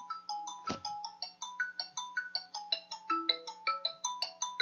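Mobile phone ringtone playing a melody of short notes, about four or five a second, with a sharp click about a second in.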